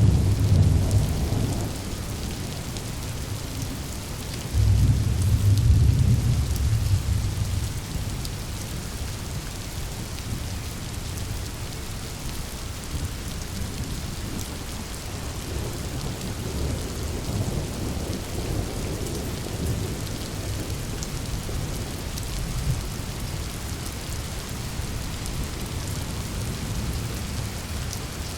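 Steady heavy rain falling in a thunderstorm, with rolling thunder. A loud peal of thunder breaks in about four and a half seconds in and rumbles for around three seconds, and fainter rumbles come and go later.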